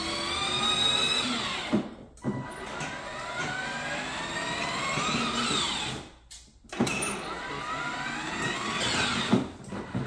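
Battery-powered BMW i8 ride-on toy car's electric drive motors and gearbox whining, rising in pitch as the car speeds up. It runs in three stretches, stopping briefly about two seconds in and again about six seconds in.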